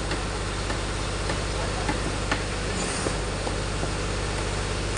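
Steady low rumble of outdoor background noise, with a few faint sharp clicks, the clearest about two and a half seconds in.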